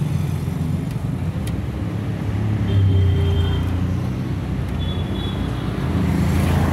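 Low, steady rumble of motor traffic, swelling about three seconds in and again near the end.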